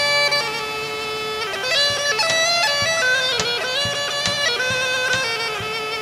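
Background music: a bagpipe playing a fast, heavily ornamented folk melody. It takes off from a long held note about half a second in.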